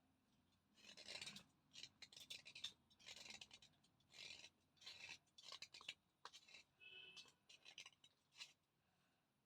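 Thick slate pencil being crunched close to the microphone: about a dozen short, dry, gritty crunches with brief pauses between them.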